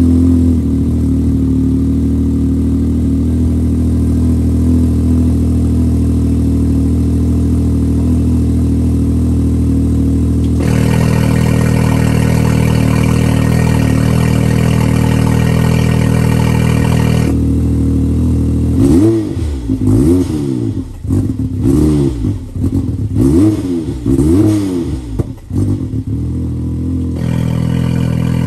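2020 Can-Am Maverick X3 Turbo's turbocharged three-cylinder engine running through an Ironclad Industries Reaper exhaust, a 3-inch catless downpipe and non-resonated valved muffler. It idles steadily, turns harsher for several seconds midway, then takes about eight quick throttle blips, roughly one a second, before settling back to idle.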